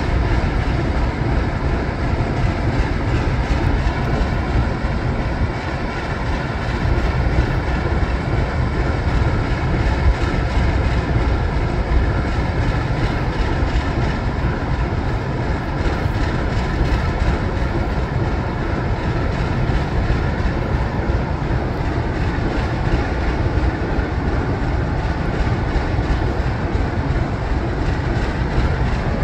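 Two ALCO diesel locomotives, a 1955 FPA-4 with its V12 251 engine and a 1946 S1 switcher with its six-cylinder 539 engine, idling steadily together while they warm up.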